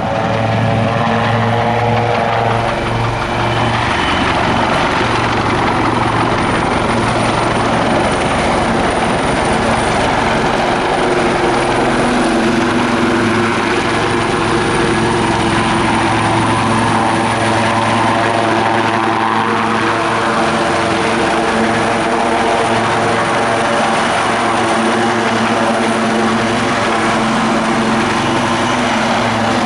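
AgustaWestland AW159 Wildcat helicopters in flight: a steady, loud rotor and twin-turbine engine sound with a constant low hum, some of its tones drifting slowly in pitch as the helicopters move.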